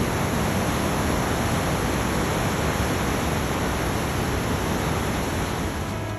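Niagara River rapids rushing: a steady, dense sound of whitewater tumbling over the riverbed.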